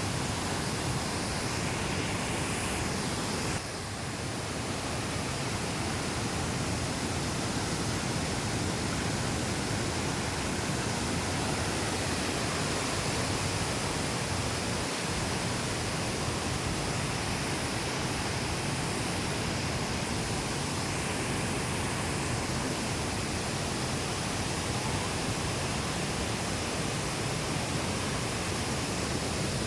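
Waterfall: a steady, dense rush of falling water, dipping slightly for a moment about three and a half seconds in.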